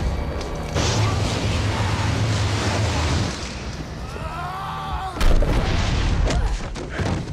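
Fight-scene sound effects over film music. A low rumbling rush starts about a second in, a man yells a little after four seconds, a heavy boom hits about five seconds in, and a few sharp hits follow near the end.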